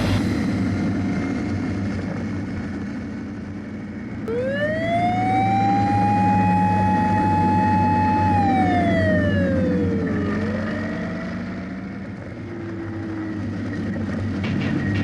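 Motorcycle on the move, heard on-board over steady road and wind rumble. About four seconds in, a whine rises in pitch, holds for about two seconds, then slides back down, and starts to rise again shortly after.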